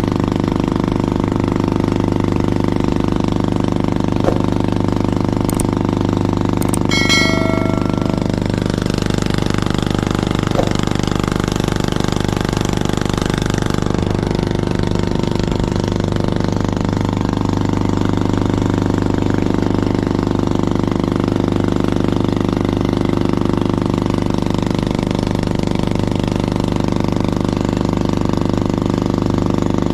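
Outrigger boat's (bangka's) engine running steadily at constant speed while the boat is under way. A short high-pitched sound cuts in briefly about seven seconds in.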